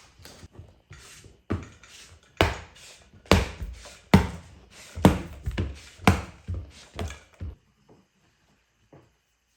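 A series of hard knocks, about two a second, starting about a second and a half in and stopping near the end, as when luxury vinyl planks are tapped into place.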